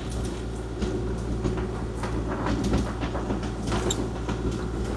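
Kubota KX040-4 mini excavator's diesel engine running steadily, with scattered clunks and rattles from the machine working.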